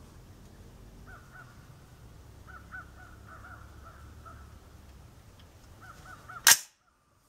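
Repeated short crow-like caws in small groups, then near the end a single suppressed rifle shot from a 6x45 AR-15, the loudest sound by far.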